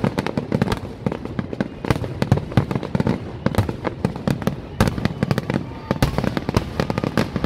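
Aerial fireworks display: a dense, continuous run of bangs and crackles from many shells bursting at once, with heavier clusters about two seconds in and again near five and six seconds.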